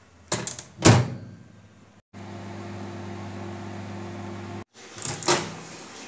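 Microwave oven door pushed shut with two clicks of the latch. The oven then runs with a steady low hum, and near the end the door is clicked open again.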